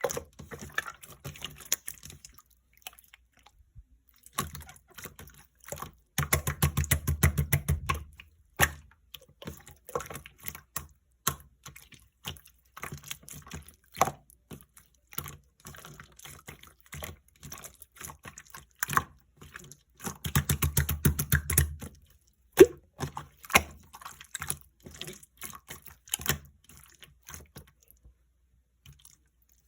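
Clear slime being squished and pressed by hand, making a run of wet clicks and pops. Two longer stretches of dense crackling squishes come about a quarter of the way in and again about two thirds of the way in.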